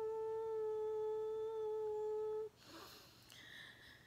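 A woman humming one long, steady note that cuts off about two and a half seconds in, followed by a faint breath.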